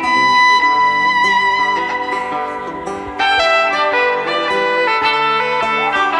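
A live band playing: one long held high note over shifting lower chords, then the music gets louder and busier just after three seconds in.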